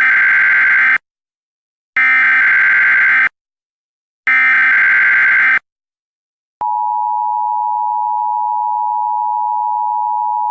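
Emergency Alert System signals: three bursts of digital SAME header data tones, each about a second long and a second apart. About six and a half seconds in, the steady two-tone EAS attention signal starts.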